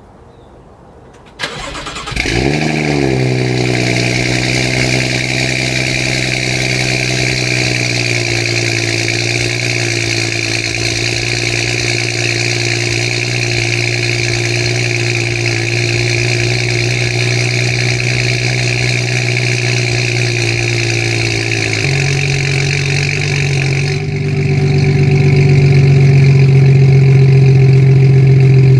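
BMW F30 335i's turbocharged N55 inline-six, fitted with a catless downpipe, starting cold about two seconds in: a click, then a loud startup flare whose pitch rises and falls back, settling into a steady idle. About twenty seconds later the idle note shifts and gets louder.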